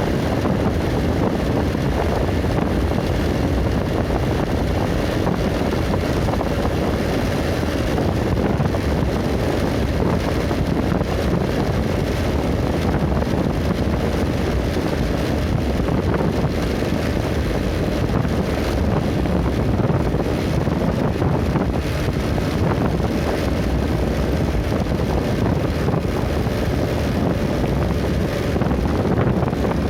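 Steady wind buffeting the microphone over the low rumble of a moving road vehicle.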